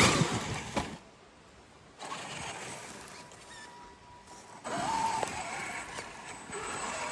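Traxxas X-Maxx RC monster truck's electric motor whining under hard throttle. It comes as a loud burst that dies away about a second in, then a shorter whine near the middle, then steadier running.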